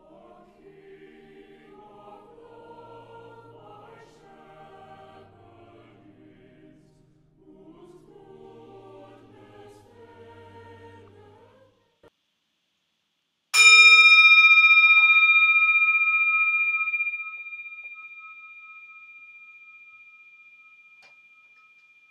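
A choir singing for about twelve seconds, then a single bell struck once, its high ring fading slowly over several seconds, marking the start of the Mass as the priest comes to the altar.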